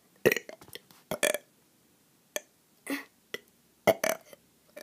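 A person burping in a string of short, separate burps with brief pauses between them, the loudest near the start, about a second in, and about four seconds in.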